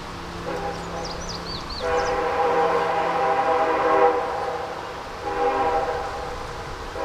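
Diesel freight locomotive's air horn sounding a chord of several notes: a long blast that swells in about two seconds in, then a shorter blast near the end.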